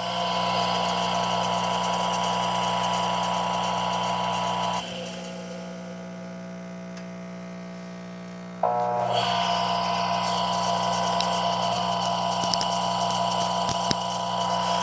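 Electrolux washing machine drive motor running unloaded on the spin setting with its belt removed: a steady electric hum. About five seconds in the hum drops and quietens, then comes back to full level suddenly about four seconds later.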